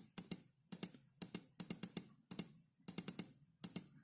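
Small push-buttons on a DIY electronic alarm clock kit clicking in quick repeated presses, in short runs of two to five clicks, stepping through the alarm time setting.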